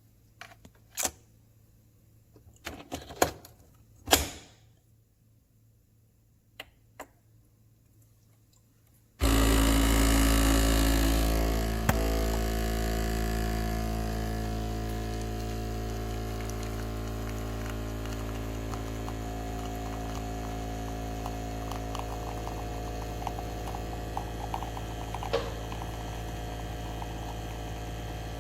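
A few sharp clicks, then about nine seconds in the capsule espresso machine's pump starts with a sudden, loud, steady electric hum and keeps running as it brews a cup.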